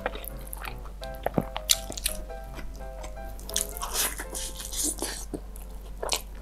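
Close-up wet, squishy eating sounds: clicks of sticky fingers in sauce, then biting into and chewing a piece of fried chicken coated in cheese sauce, loudest between about three and a half and five seconds in. Soft background music with sustained notes plays under it.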